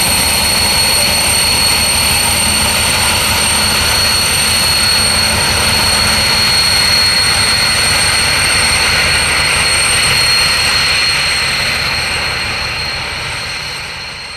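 TEM2 diesel locomotive's six-cylinder diesel engine running steadily as it hauls a train of wagons, a steady high-pitched whine over the engine noise. The sound fades in the last few seconds as the locomotive moves away.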